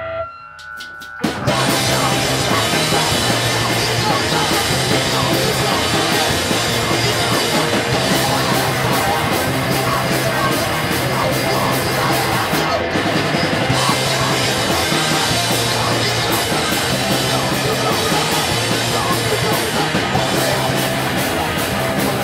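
Live rock band of drum kit and two electric guitars. A few sharp hits come first, then the full band comes in loud about a second in and plays a steady, driving rhythm.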